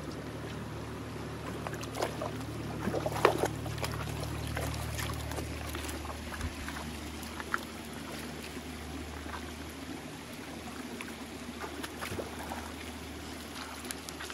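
Basset hounds' paws splashing and sloshing as they wade through a shallow creek, over the steady trickle of the running water. The splashes come in scattered bursts, thickest a couple of seconds in.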